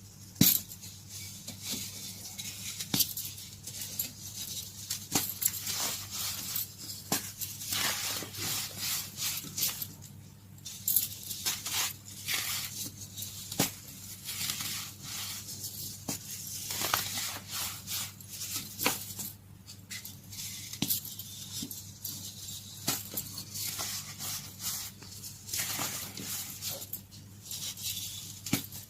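Caked baking soda being crushed, a dense run of sharp, crisp crunches and crackles with short pauses between handfuls.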